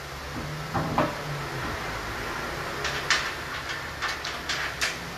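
Hand work at a car's wheel on a workshop lift: a knock about a second in, then a quick run of sharp clicks and knocks near the end.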